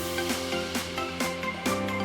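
Background music with sustained pitched notes over a steady beat of about two strokes a second.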